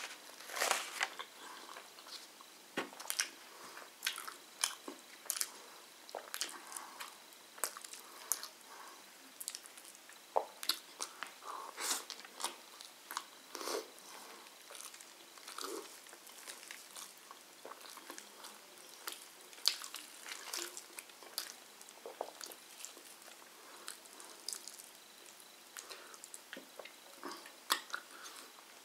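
Close-up eating: a man chewing and biting into chicken and flatbread, with many short, irregular mouth clicks and crunches.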